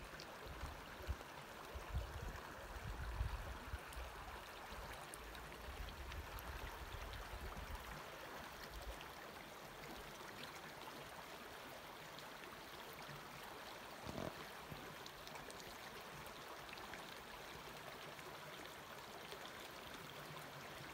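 Creek water running steadily, a soft even rush. For the first several seconds low rumbling buffets on the microphone sit under it, and there is one brief soft knock about fourteen seconds in.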